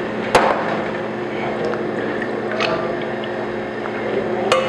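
Steady hum and rushing noise of kitchen equipment running, with a sharp metal clink about a third of a second in, a lighter one midway and another near the end as steel bowls are handled; liquid is poured from a steel bowl into a small bowl near the end.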